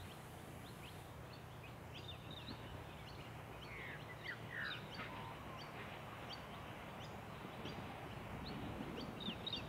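Birds chirping in short, high calls over a faint low hum from the distant rail motor's twin 6-71 diesel engines, which grow louder near the end as it approaches.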